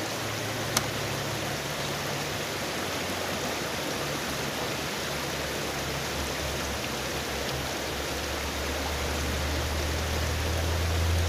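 Fast river current rushing over and through the bamboo slats of a large traditional fish trap, a steady hiss of flowing water. A single sharp click comes about a second in, and a low rumble swells near the end.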